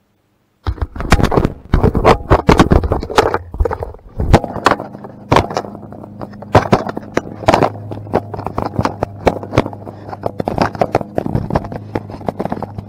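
Fingers rubbing and knocking on an action camera right at its microphone as it is handled, starting suddenly under a second in. From about halfway, a riding mower's engine can be heard running steadily underneath.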